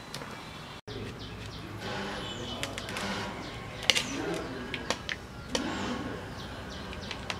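Outdoor background sound: birds chirping in short, falling chirps here and there, with faint voices in the distance. The sound drops out briefly just before a second in.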